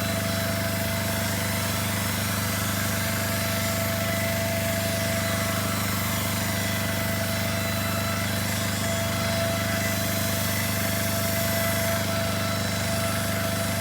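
A motor-driven machine running steadily, with a low hum, a constant thin whine and a hiss over it.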